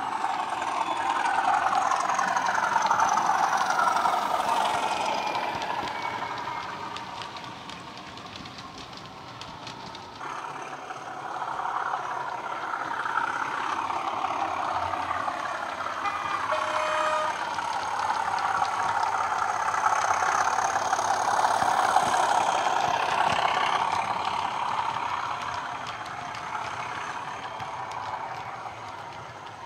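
Coastal DCC sound decoder in a Bachmann OO-gauge Class 37/0 model playing a Class 37 diesel engine sound through a small 27 mm bass speaker as the locomotive runs round the layout. It grows louder and fades away twice as the model passes and moves off.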